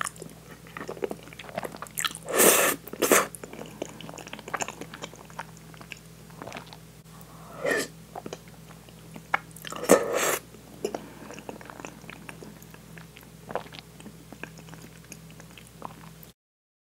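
Close-up eating sounds of spaghetti in meat sauce: several loud slurps as noodles are sucked in, the loudest about two and a half, three, eight and ten seconds in, with soft wet chewing clicks between them. The sound cuts off just before the end.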